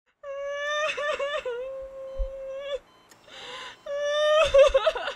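A woman crying loudly in two long, high wails, the first wavering in the middle, with a sobbing breath drawn between them.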